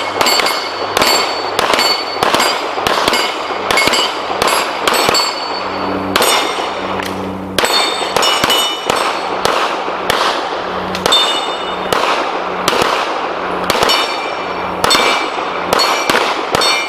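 Pistols firing in a quick, uneven string, each shot followed by the ring of steel targets being hit.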